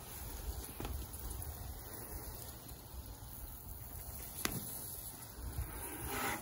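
Garden hose pistol-grip spray nozzle hissing steadily, its water pattering onto a flower bed and the base of a brick wall, with a low rumble of wind on the microphone and a couple of faint ticks.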